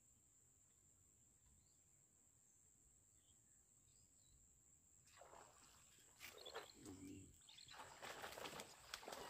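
Near silence: faint outdoor ambience with a steady high tone and a few distant bird chirps, then faint rustling and knocks from about five seconds in.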